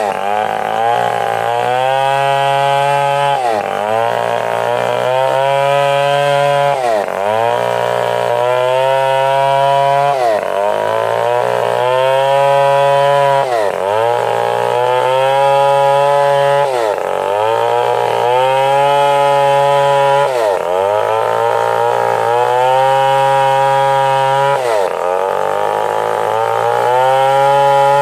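Stihl 070 two-stroke chainsaw running hard under cutting load. Its pitch dips sharply and recovers about every three and a half seconds.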